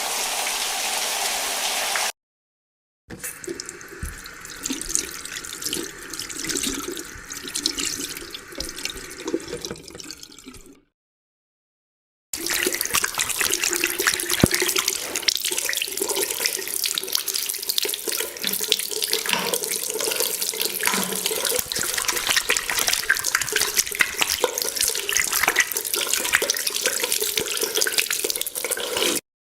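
Three separate water sound effects with silent gaps between them: a steady rush of water for about two seconds, then a quieter, uneven flow of water, then a long stretch of a tap running and splashing into a sink.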